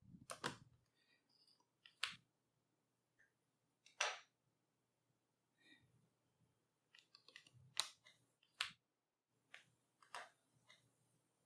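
Scattered small, sharp clicks and light taps, about seven spread across several seconds against near silence, from the internals of a Librem 14 laptop being handled as the RAM module's retaining tabs are pulled apart and the memory stick is lifted out.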